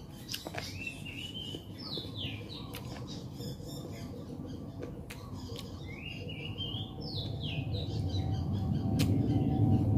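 Birds calling over and over: short falling chirps and, twice, a rising run of stepped notes. Scattered sharp clicks are heard, and a low rustling noise grows louder near the end.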